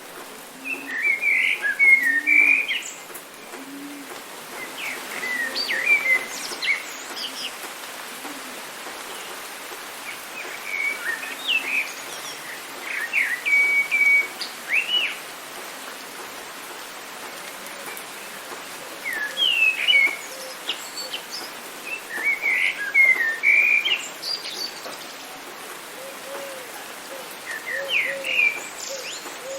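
Songbird singing in short bursts of quick chirps and whistles every few seconds, over a steady hiss of rain. Faint low calls sound near the start and again near the end.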